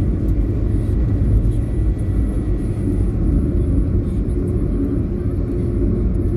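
Steady low rumble of a car's engine and tyres on asphalt, heard from inside the cabin while driving at road speed.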